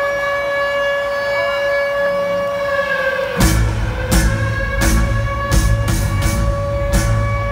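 Live concert music over a stadium sound system: a steady siren tone sounds, then about three and a half seconds in a heavy beat with deep bass and sharp drum hits comes in.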